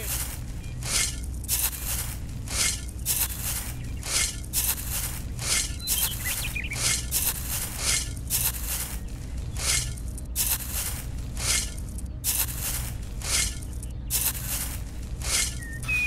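Uncooked rice grains scooped with a small metal toy shovel and poured into a plastic toy trailer, a rustling patter about twice a second, over a faint steady low hum.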